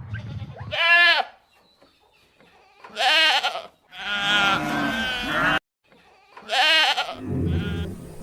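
Goats bleating: about five separate wavering calls with short silent gaps between them, one cutting off abruptly partway through.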